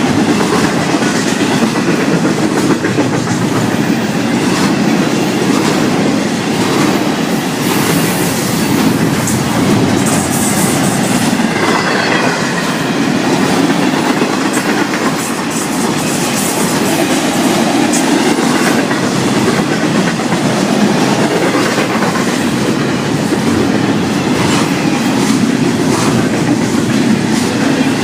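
Florida East Coast Railway freight train's cars rolling past at speed, a steady loud rumble with the steel wheels clicking over the rail joints.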